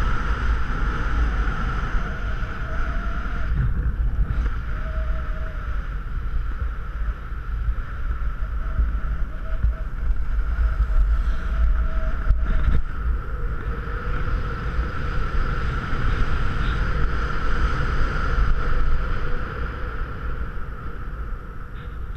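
Steady rush of wind buffeting a skier's action-camera microphone, mixed with the hiss and scrape of skis running over packed, groomed snow.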